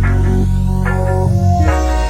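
Background music: electronic track with plucked notes over a heavy bass.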